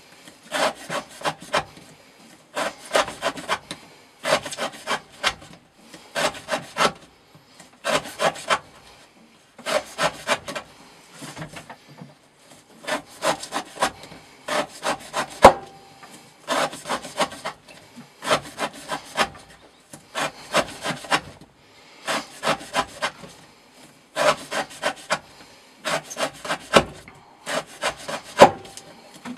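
Elmax steel knife blade slicing through rope again and again, with a rasping cut of a few short scrapes about every one and a half to two seconds, as in a repeated-cut edge-retention test.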